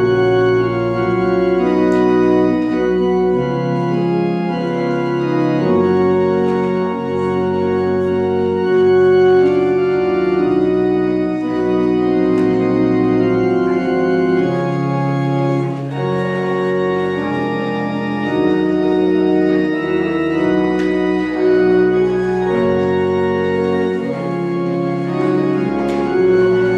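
Organ playing a hymn in sustained chords that change every second or two.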